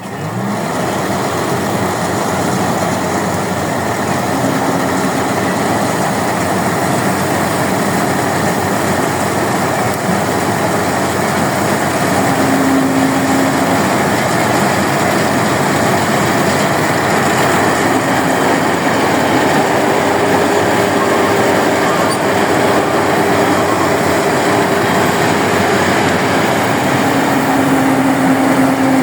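Rice combine harvester running, a loud, steady mechanical din from its engine and cutting and threshing machinery.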